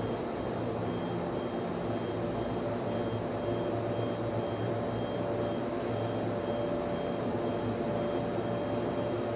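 Server room ambience: the steady hum and whir of equipment cooling fans, several constant tones over a rushing noise, with a faint high tone pulsing at an even rhythm.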